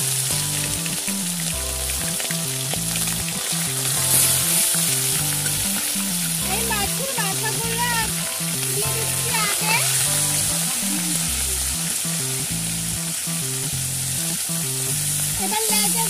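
Fish pieces sizzling steadily as they fry in hot mustard oil in a kadai, over background music.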